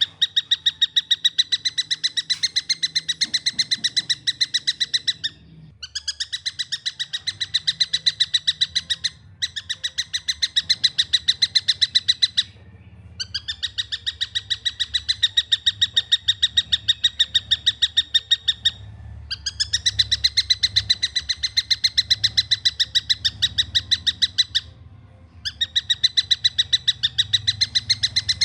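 Juvenile tengkek buto (a kingfisher) calling in long runs of rapid, evenly repeated notes, broken by short pauses every few seconds. A faint low hum lies underneath.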